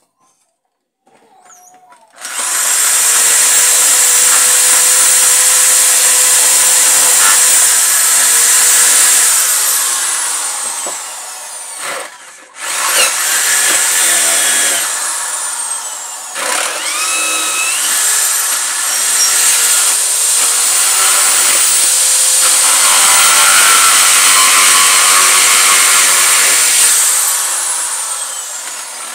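Corded electric drill boring holes in a wooden board: it starts about two seconds in and runs with a high whine. Its speed sags and rises with the trigger and as the bit bites into the wood, cutting out briefly a little before halfway before it starts again.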